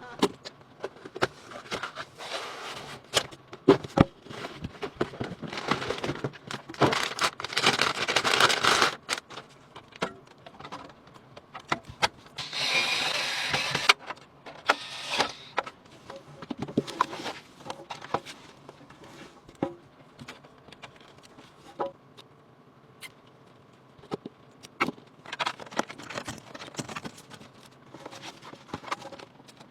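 Computer parts being handled and fitted together: irregular clicks, taps and scrapes, with a denser rustling stretch about six to nine seconds in and a steady hiss of about a second and a half around the middle.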